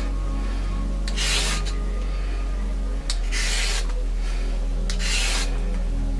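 Y-shaped vegetable peeler scraping strips off a raw carrot: three short rasping strokes about two seconds apart. Steady low background music runs underneath.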